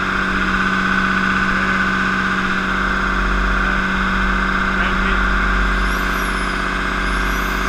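MEP-005A 30 kW diesel generator set running at a steady speed, a constant engine drone with an even hum. Near the end a faint high whine rises and falls twice.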